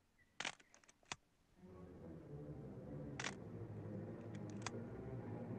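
A handful of sharp, camera-shutter-like clicks: two about half a second and a second in, another past three seconds, and a quick cluster after four seconds. From about a second and a half in, low orchestral music fades in and builds under them.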